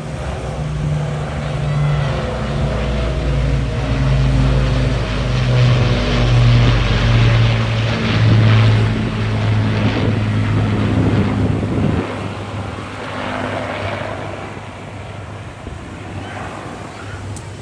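Avro Lancaster bomber's four Rolls-Royce Merlin V12 piston engines droning as it flies past. The drone falls in pitch as the aircraft passes, is loudest in the middle, then fades as it flies away.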